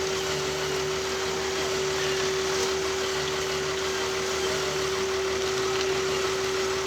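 A motor running steadily, with a constant droning tone over an even rushing noise.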